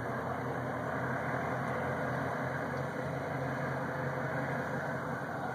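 Steady low drone of boat engines with a wash of noise over it, swelling slightly as it starts.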